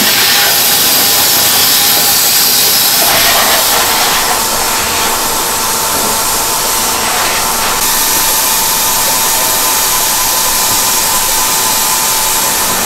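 Factory machinery running steadily in a ceramics glazing line: a loud, even hiss with a faint steady whine.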